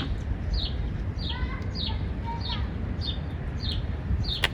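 A bird calling over and over, a short falling chirp about every 0.6 seconds, over a steady low background rumble. A sharp click just before the end.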